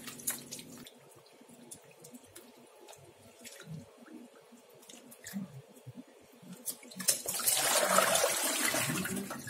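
Faint splashing and dripping as a head of broccoli is swished in a plastic bowl of water. About seven seconds in, a steady rush of water starts as the bowl is tipped out into a stainless steel sink.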